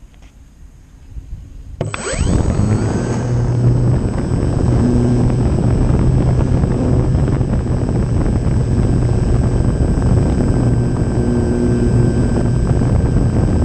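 Electric motor and propeller of a radio-controlled Korda Dethermalizer model airplane, heard from a camera on the plane, starting suddenly about two seconds in with a short rising whine, then running steadily and loudly through the takeoff roll and climb.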